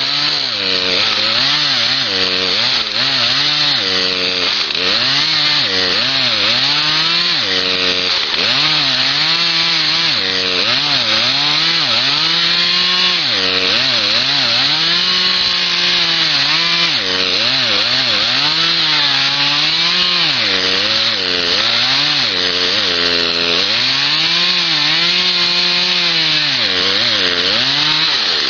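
Chainsaw cutting a notch into a red oak trunk, its engine running hard. The pitch dips and climbs back over and over as the chain bites into the wood and is eased off.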